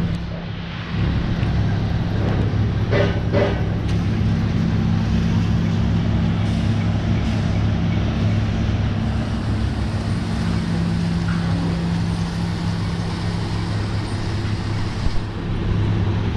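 Komatsu mini excavator's diesel engine running steadily close by, a low, even drone whose note changes slightly about four seconds in.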